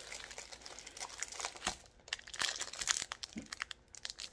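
Irregular crinkling and rustling as a rolled diamond painting canvas and its paper wrapping are handled and unrolled by hand, with a couple of brief pauses.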